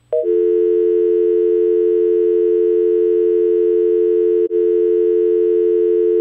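North American telephone dial tone: a steady, unbroken two-note hum that starts a moment in and breaks off for an instant about four and a half seconds in.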